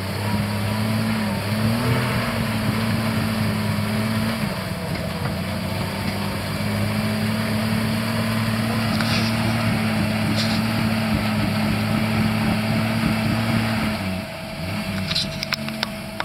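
Lifted 4x4 truck's engine held at high, steady revs in deep mud, with a brief dip and pick-up about a second and a half in. The revs drop back after about fourteen seconds, and a few sharp clicks follow near the end.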